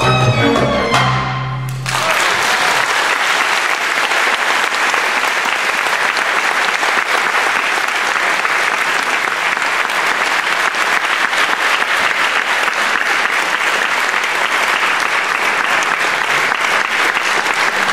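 A folk ensemble of violin, viola, kaval and double bass ends its tune on a final chord that stops about two seconds in. An audience then applauds steadily.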